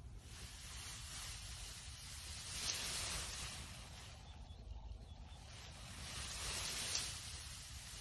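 Bare foot pressing down on a foam-filled sock, the foam squeezing out through the knit with a soft hiss that swells twice, over a steady low rumble.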